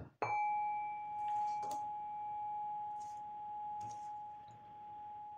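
Metal singing bowl struck once with its mallet, then ringing on in one steady tone that swells and fades slowly as it dies away.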